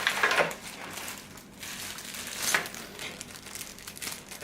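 Plastic packaging crinkling and rustling as car stereo accessories are handled, with louder bursts at the start and about halfway through.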